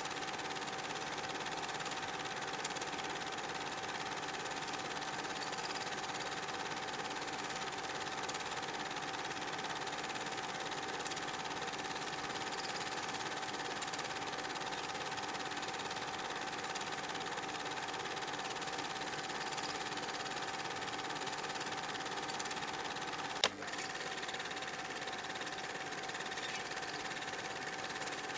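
A steady droning hum holding several fixed tones, unchanging in pitch or level, broken by one sharp click near the end.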